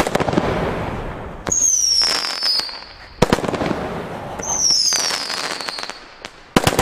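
Weco Quantum 30 mm firework battery firing: a hissing fountain at the start, then shots that send up crackling green stars and whistlers. Two whistles, each about a second long and falling in pitch, follow the shots.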